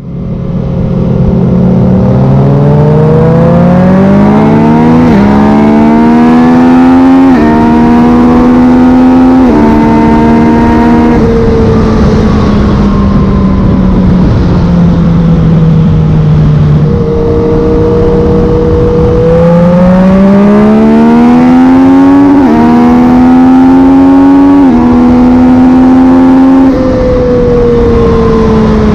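Yamaha MT-09's three-cylinder engine through a Black Widow carbon full exhaust, accelerating hard in two runs. Each run has three quick upshifts, where the pitch climbs and then drops suddenly as the quickshifter changes gear without closing the throttle. After each run the engine rolls off with a falling note.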